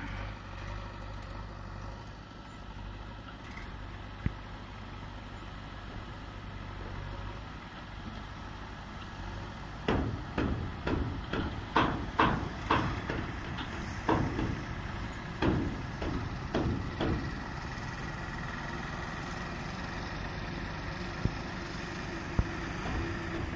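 Vehicle engines running steadily, with a run of sharp, irregular knocks and clanks about ten seconds in that lasts several seconds.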